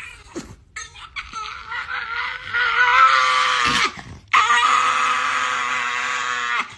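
A long, high, steady cry or howl, held at one pitch. It breaks off a little after halfway and starts again straight away.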